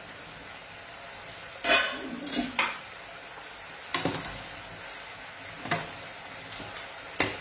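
A utensil knocking and scraping against a stainless steel pasta pot as the pasta is stirred, a handful of separate clanks with the loudest cluster about two seconds in, over a steady low sizzle of food frying in the pans on the stove.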